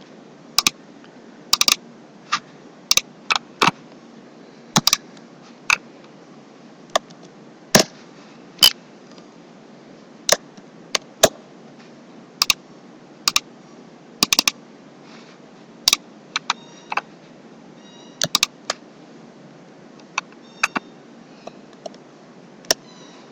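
Sharp computer keyboard keystrokes and mouse clicks at irregular intervals, singly or in quick pairs, over a steady hiss.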